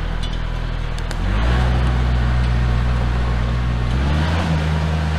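Kubota L4701 compact tractor's diesel engine running under load. Its revs step up about a second in and again at about four seconds, and it gets louder as the revs rise.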